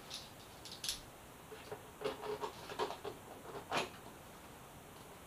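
Light, irregular clicks and rubbing of hands working plastic motorcycle fairing panels into place, about half a dozen taps, the loudest nearly four seconds in.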